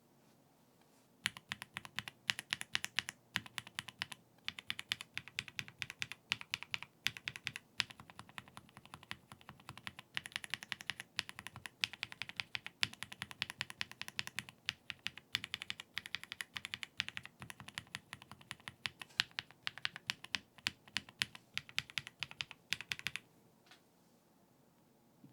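Fast typing on a Keychron C3 Pro mechanical keyboard with double-shot PBT keycaps: a dense, uneven stream of key clacks. It starts about a second in and stops a couple of seconds before the end, leaving only a few single keypresses.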